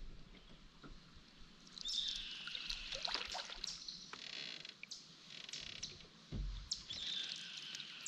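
Canoe paddle strokes in lake water: a gurgling swirl and drips as the blade pulls through and lifts out, twice, with a low thump from the paddle or hull between them.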